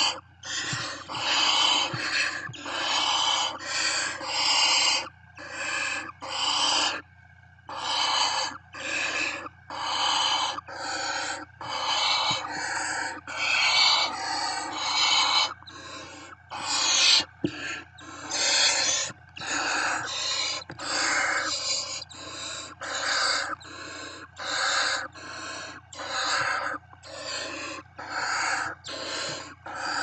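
Barn owl nestlings giving rasping, hissing calls over and over, about one a second, each hiss lasting half a second to a second: the 'snoring' food-begging call of barn owl chicks.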